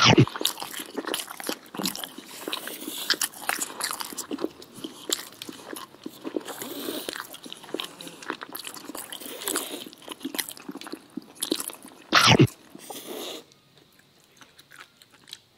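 Close-up eating sounds: noodles slurped and chewed, with many small clicks of chopsticks on plastic food trays. There is a louder burst of sound about twelve seconds in, and after that it goes quieter.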